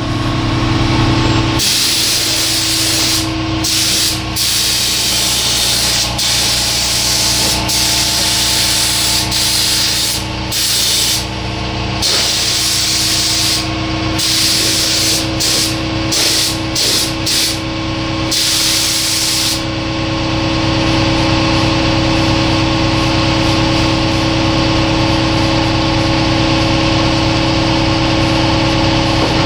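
Gravity-feed paint spray gun hissing as it is triggered on and off to lay colour. It runs in long passes for the first ten seconds or so, then in a string of short bursts, and mostly stops about twenty seconds in. A steady motor hum runs underneath.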